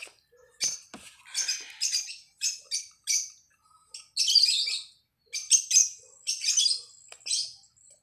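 Small birds chirping in quick, irregular bursts of high-pitched calls, with one longer thin whistled note in the middle. A couple of light clicks sound about a second in.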